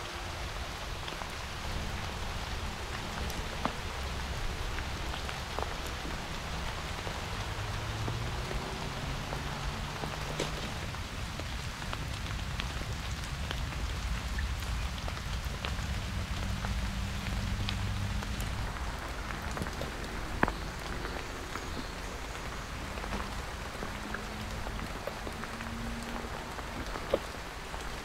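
Steady pattering hiss like rain falling on leaves and surfaces, with scattered single drips or ticks; two sharper ticks stand out near the end.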